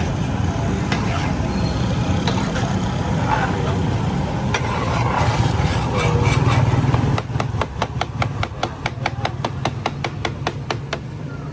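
A rapid, even clatter of metal spatulas striking a tawa griddle, about eight strikes a second, starting about seven seconds in. Underneath runs a steady hum of street traffic and voices.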